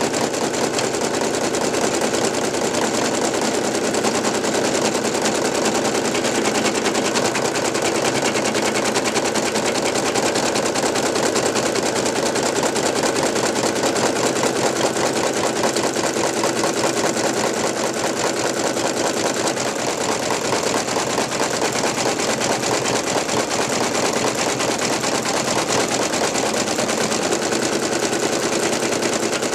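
Brother NV2600 computerized embroidery machine stitching steadily: a rapid, continuous needle clatter.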